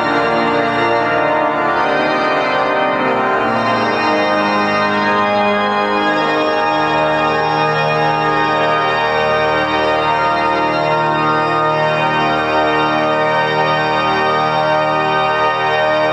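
Cathedral pipe organ playing sustained full chords, the bass notes moving to new chords every second or two.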